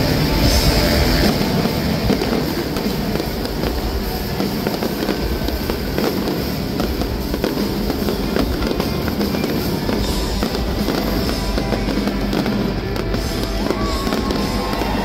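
Fireworks going off, a dense run of overlapping bangs and crackles without a pause, with music playing along.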